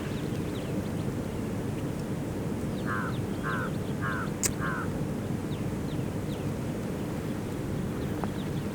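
A bird gives four short, rasping, quack-like calls about half a second apart, over a steady low outdoor rumble with faint higher chirps of small birds. A single sharp click comes between the third and fourth calls.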